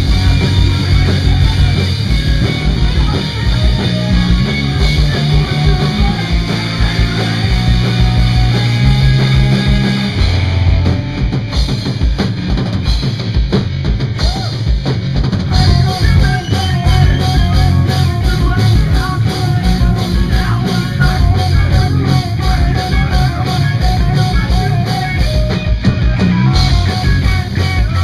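Punk rock band playing live: electric guitars over a driving rock drum-kit beat.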